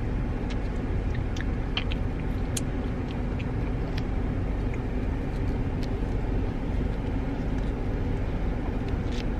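Steady low rumble of a car heard from inside the cabin, with a faint steady hum and a few light clicks.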